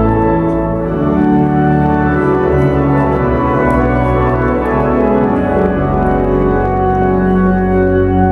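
Church organ playing slow sustained chords over deep bass notes.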